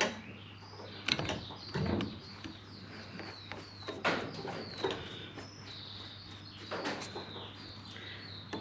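A handful of separate small clicks and knocks of screws and a screwdriver as a throttle position sensor is screwed onto a throttle body. Birds chirp faintly behind them.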